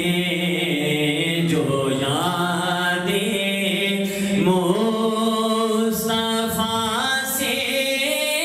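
A man singing a naat, drawing out long held notes that slide up into new pitches a few times.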